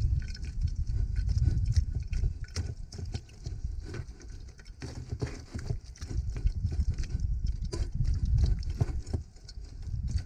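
Metal spoon pressing and scraping pitanga fruit against a mesh sieve, working the soft pulp through into the bowl below: irregular clicks, taps and squelchy scrapes over a low rumble.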